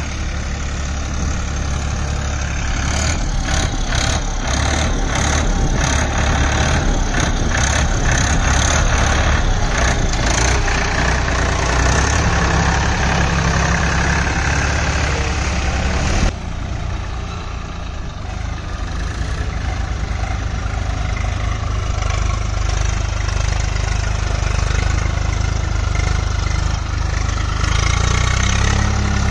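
Farm tractor diesel engines running steadily under load as the tractors work through deep, waterlogged mud. From about three seconds in, a run of sharp clicks lasts several seconds over the engine. About sixteen seconds in, the engine sound changes abruptly.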